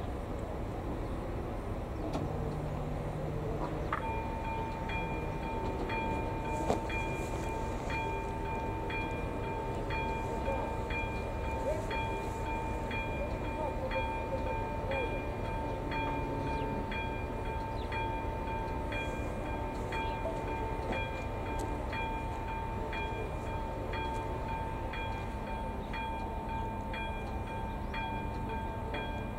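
Level-crossing warning bell of an AŽD 71 crossing with a ZV02 electronic bell, starting suddenly about four seconds in and ringing on in a steady, even repeating rhythm over a held tone: the crossing has activated to warn of an approaching train.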